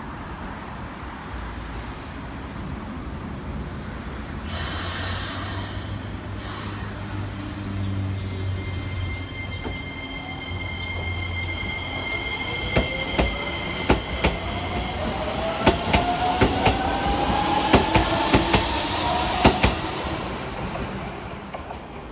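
Keisei electric commuter train pulling out of the station. A burst of hiss comes about four seconds in, then the motors' electric whine, first steady and then rising in pitch as the train speeds up, with wheels clicking over rail joints. It grows loudest as the last cars go by, then fades.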